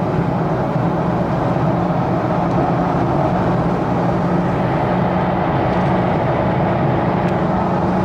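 A Jeep driving, its engine running at a steady pitch under road noise.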